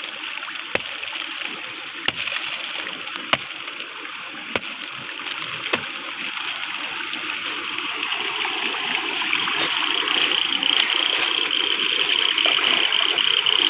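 Steady hiss of rain with scattered sharp clicks and crinkles of a plastic bag being handled. About ten seconds in, a rapid, high, pulsing buzz joins in and grows louder.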